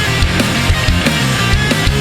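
Loud rock intro music with heavy drums and distorted guitars, at a fast, steady beat.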